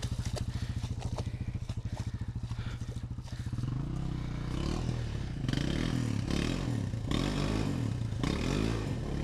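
Dirt bike engine idling with a steady rapid beat, then from about three and a half seconds in revving up and down repeatedly under load as the bike is ridden out of deep mud where it had been stuck.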